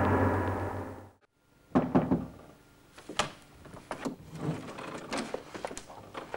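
A dramatic timpani music sting fades out in the first second, then the sound cuts out briefly. From about two seconds in come scattered knocks and clunks, like a door being handled and light movements in a room.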